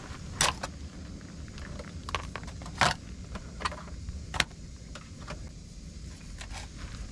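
A white plastic caddy and small paint jars knocking and clattering as painting supplies are handled and packed away: a handful of sharp knocks, the loudest a little before the middle, over a steady low rumble.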